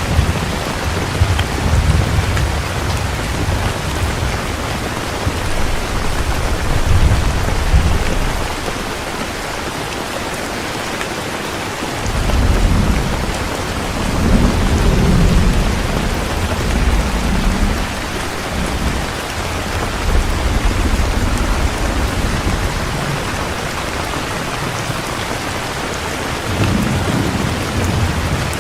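Heavy rain falling steadily, with low rolling rumbles of thunder through the first third and the middle, and briefly again near the end.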